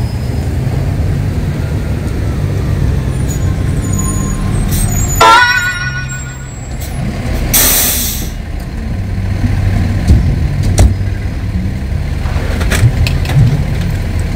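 Fire engine pulling up: a heavy diesel engine running low, a short rising siren chirp about five seconds in, then a loud hiss of air brakes about two seconds later. A few sharp cracks come near the end.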